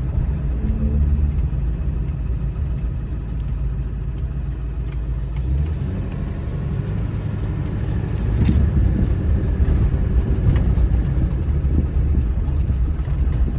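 7.3-litre diesel pickup truck driving along the road: steady engine drone and road rumble, getting louder about eight seconds in.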